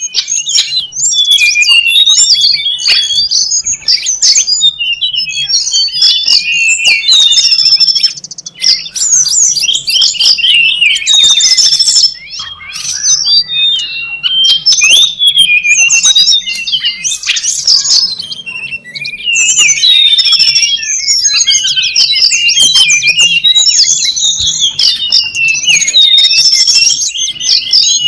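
Dense, rapid chirping and twittering of tledekan gunung songbirds, a lure call used to draw wild birds in, with brief breaks about eight and twelve seconds in.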